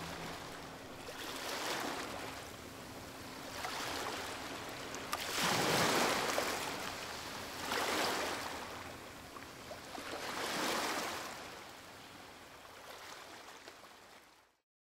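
Open-sea waves washing, swelling and falling about every two seconds. The sound fades and then cuts to silence near the end.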